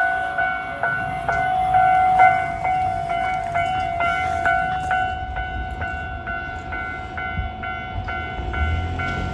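Japanese level-crossing warning signal ringing its standard electronic tone, about two strikes a second, over the low rumble of a freight train on the line.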